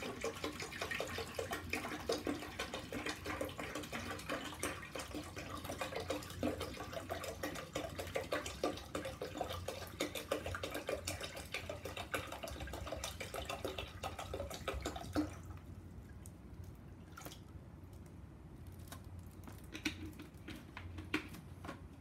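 Tap water poured from a 2-litre plastic bottle into the open water tank of an ultrasonic humidifier, splashing steadily; the pour stops about fifteen seconds in, followed by a few light clicks and taps.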